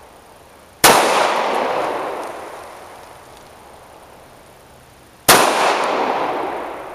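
Two gunshots about four and a half seconds apart, each a sharp crack followed by a long echoing decay.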